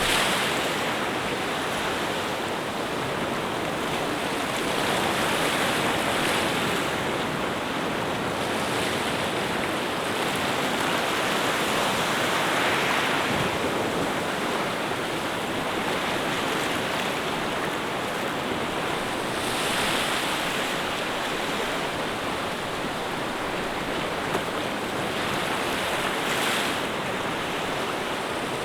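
Waves washing in a steady rush, swelling slightly about every seven seconds.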